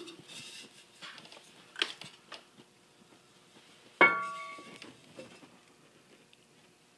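A few light knocks of ceramic ware being handled, then about four seconds in one sharp clink of a stoneware mug that rings briefly with a bell-like tone before dying away.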